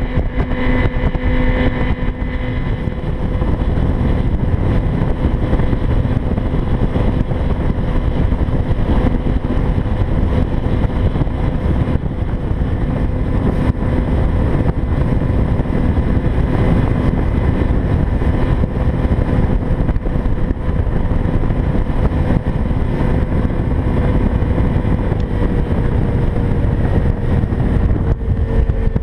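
Boat's outboard motor running steadily at speed, with wind and water noise on the microphone. The engine note sags slightly near the end.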